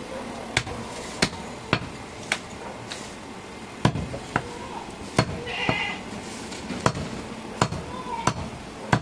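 Heavy butcher's knife chopping goat meat on a wooden log chopping block: about a dozen sharp thuds, roughly one every half second to second.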